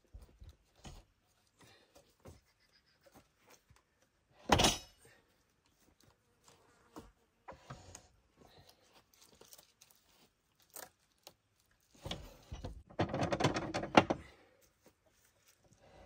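Wooden slab and log being handled on a band sawmill's bed with the saw stopped: scattered light knocks and scrapes, one loud wooden thump about four seconds in, and a couple of seconds of rattling, scraping clatter near the end.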